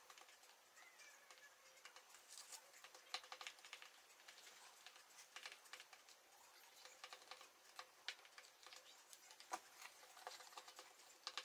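Faint, irregular clicks and ticks of a small spoon stirring thick paw-casting mold mix in a tall plastic tumbler.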